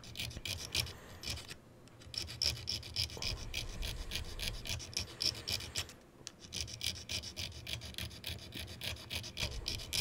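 A small hand file rasping back and forth across the edge of a small metal plate from a rotary switch, clamped in a vise, in a quick run of short scraping strokes that pauses briefly twice. The filing takes metal off the plate.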